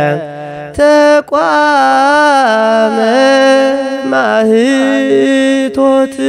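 A solo voice singing a melismatic Eritrean Orthodox Tewahdo hymn, with long held notes ornamented by bending turns; the singing breaks off briefly about a second in.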